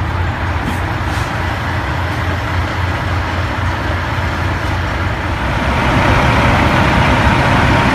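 Semi-truck diesel engine idling, a steady low rumble that grows a little louder about two-thirds of the way in.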